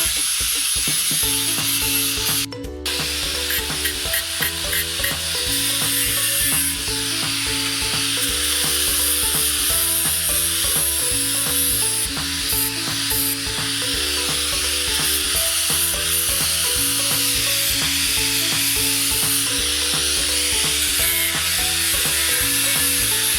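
Food sizzling in a frying pan, under background music with a steady rhythm of changing notes.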